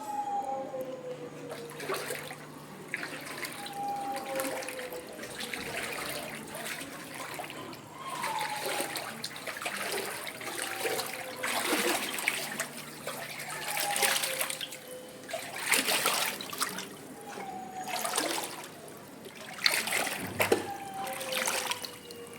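Floodwater splashing and trickling, with irregular louder splashes every second or two. A soft pair of falling tones recurs every few seconds underneath.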